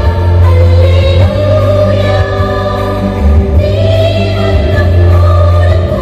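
Church choir of women and men singing a Malayalam Christmas carol together, in long held notes with short breaks between phrases.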